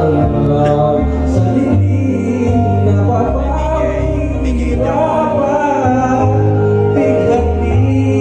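A song with singing over deep, sustained bass notes, played through an event PA sound system.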